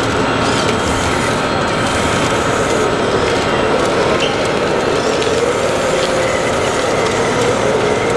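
1/14-scale radio-controlled construction machinery and trucks running: a steady mechanical din with a wavering hum, a constant high whine and a few faint clicks.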